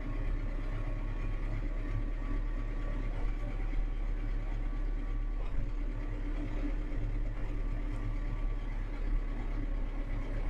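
Claas Arion 430 tractor's four-cylinder diesel running steadily as the tractor drives slowly in a low gear. Heard from inside the cab as an even, low hum.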